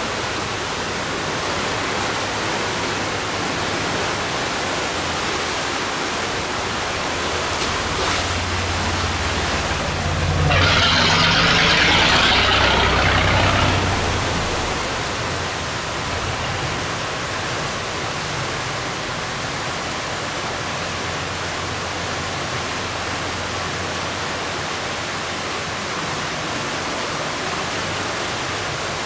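Water rushing steadily through the gates of a sluice, with a low engine hum beneath. About ten seconds in, an engine and a hiss of water grow louder for some three seconds, then fall back.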